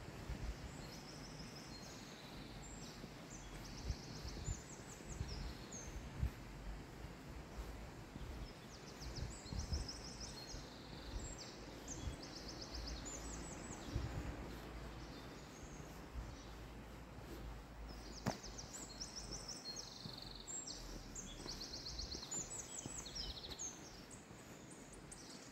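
Songbirds singing in short, rapid trilled phrases high in pitch, several overlapping, over a steady low rumble with a few soft knocks and one sharp click past the middle.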